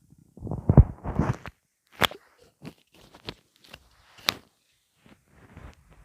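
Stomach gurgling, with gas moving through an empty stomach: a loud bubbling rumble about half a second in, then a few sharp pops and clicks and faint crackling.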